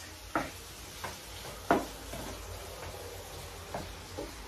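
Wooden spatula stirring chopped tomatoes in a frying pan, knocking against the pan about six times at uneven intervals, over a faint steady sizzle of the sautéing vegetables.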